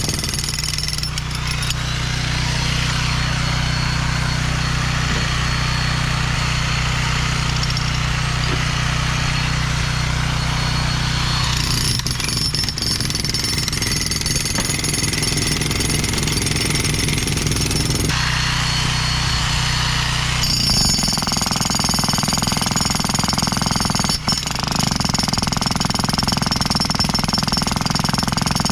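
Bosch GSH 16 corded electric breaker hammer hammering continuously into a concrete curb. The tone of the hammering shifts a few times as the bit works the concrete: about twelve seconds in, again near eighteen seconds, and once more a little after twenty.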